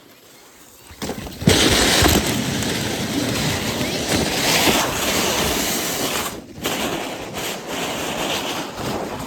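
Loud rushing, scraping hiss of sliding fast down an icy snow slope and off a ramp, starting about a second and a half in and running nearly to the end, with a brief break a little after six seconds.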